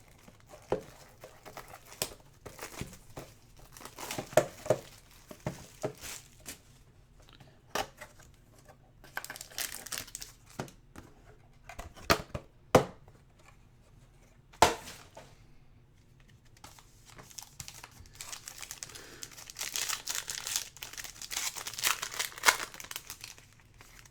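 A trading-card box and its wrapping being torn open by hand. Crinkling and tearing are broken by scattered clicks and handling knocks, and the crinkling turns steady and dense in the last few seconds.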